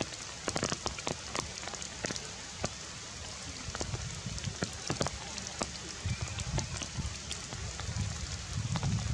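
Rain falling on forest foliage: a steady hiss with many sharp drips striking leaves, over a low rumble that swells near the end.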